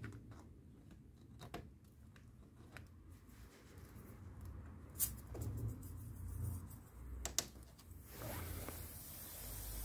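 Pliers working the spring hose clamps on an LPG gas-phase filter: small metallic clicks and handling noises, with two sharp clicks about five and seven seconds in. From about eight seconds a steady hiss follows, the small amount of leftover LPG escaping from the hose between the vaporiser and the injector rail as it is opened.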